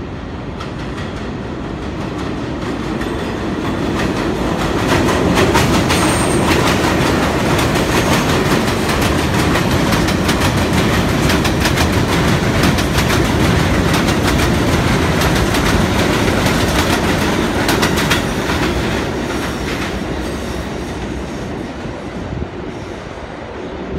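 R32 subway train running past on elevated track, its wheels clattering over the rail joints. It builds to its loudest about five seconds in, holds for a stretch, then fades as the train pulls away.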